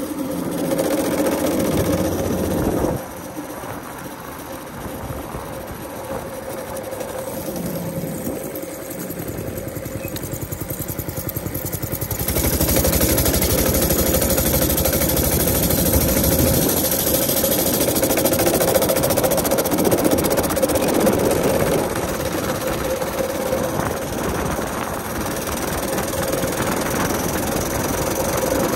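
Small single-cylinder minibike engine running on a test ride. It drops off sharply about three seconds in, then builds up again and runs louder from about twelve seconds on.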